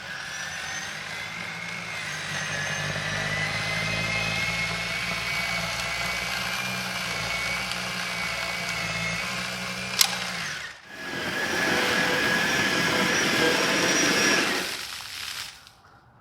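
EGO electric two-stage snow blower running, a steady electric motor whine over the churn of the auger and impeller. A sharp click comes about ten seconds in, then a short break before it runs again and dies away near the end.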